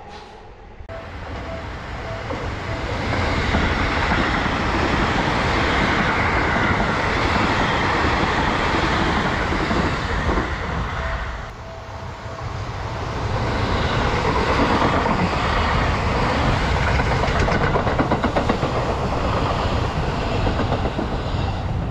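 Seibu 001 series Laview limited express electric train passing close by, a loud rushing rumble of wheels on rail that builds over the first few seconds. About eleven seconds in the sound drops briefly, then a second pass of a Laview builds up again.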